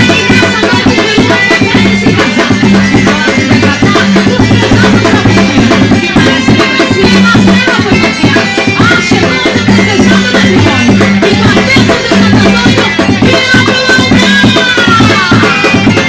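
Loud festive quadrilha junina music with steady drumming and percussion, forró-style.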